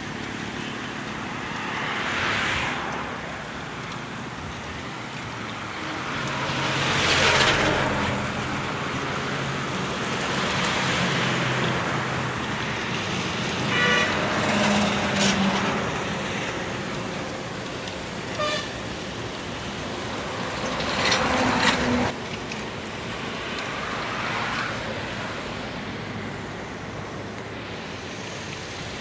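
Road traffic passing on a bridge: several vehicles go by one after another over a steady background rush, with short horn toots about halfway through.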